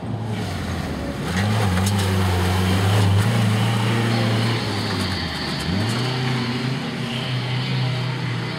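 Pickup truck engine revving hard on a dirt course. The pitch climbs about a second in and holds, dips briefly near the middle, then climbs again.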